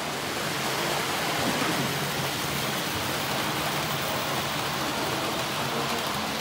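Electric model train running on its track: a steady, even rushing noise with no distinct clicks or beats.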